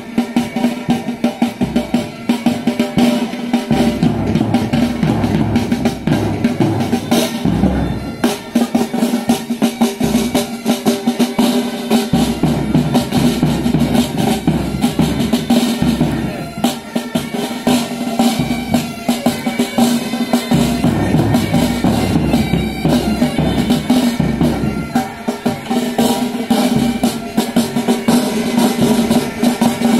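Military pipe band playing: snare drums and a bass drum beating under bagpipes, whose steady drone holds through the whole tune.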